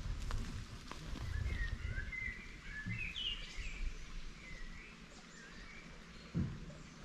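A songbird singing short warbling phrases in woodland, over a low rumble, with a single thump about six seconds in.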